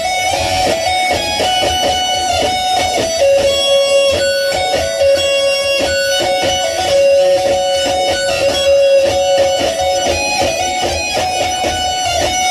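Electric guitar playing, with a long held note through the middle.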